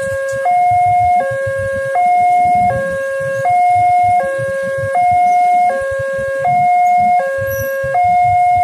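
Railway level-crossing warning alarm sounding from its loudspeaker: an electronic two-tone call, high then low, each tone held about three-quarters of a second and repeating evenly. It signals that the barriers are down for an approaching train.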